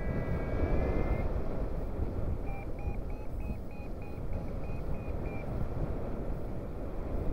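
Airflow rushing over the microphone of a paraglider in flight. A short high tone sounds at the start, and in the middle a variometer beeps rapidly, about three short beeps a second for some three seconds: its climb signal for rising air.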